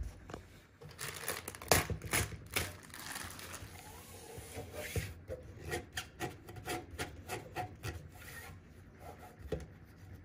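Fingers picking and scraping melted plastic residue off the sealing bar of an impulse hand sealer, a run of short, irregular scratches and clicks as the residue peels and crumbles off.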